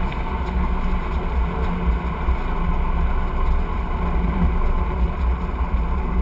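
Light aircraft's piston engine and propeller running steadily, heard from inside the closed cockpit.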